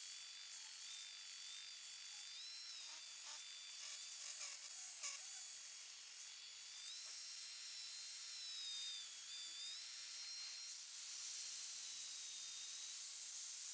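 Electric sander running with a high whine that dips and rises in pitch as it bears on the work, sanding a cut wooden molding edge down to the line.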